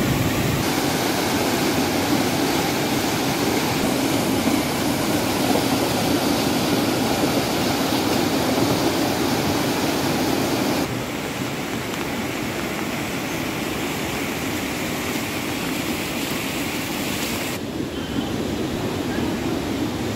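Steady rushing of a muddy mountain river in flood, swollen by heavy rain. The sound drops abruptly and grows duller about eleven seconds in, and again near the end.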